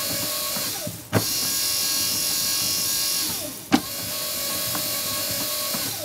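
The Gentle Roller wet felt rolling machine's electric drive running, rocking the felt bundle forward and backward. Its steady hum winds down with a falling whine, pauses, and restarts with a sharp click as the drive reverses, twice, about two and a half seconds apart.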